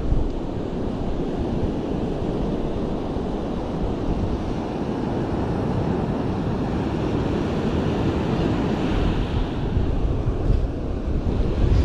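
Steady wind noise buffeting a chest-mounted camera's microphone, with a constant rushing hiss of ocean surf.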